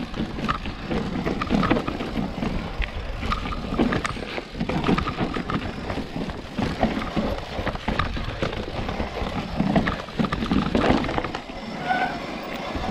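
Orange Four full-suspension mountain bike clattering down a steep, rocky descent: a dense, irregular run of knocks and rattles from the bike over stones, with a steady low rumble underneath.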